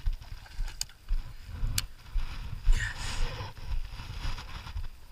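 Irregular low thumps and rubbing from a body-worn GoPro Hero 4's microphone brushing against clothing as the wearer moves, with two sharp clicks in the first two seconds and a brief rush of noise about three seconds in.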